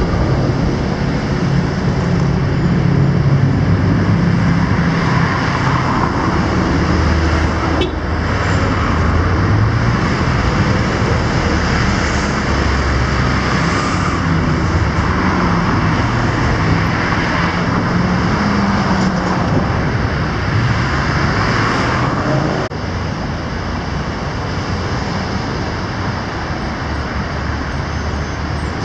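Road traffic: cars passing close by one after another, engine hum and tyre noise swelling and fading with each pass. About three-quarters of the way through it changes abruptly to a quieter, steadier hum of busy traffic.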